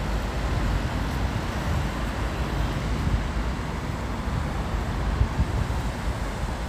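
Steady noise of city road traffic with a low rumble.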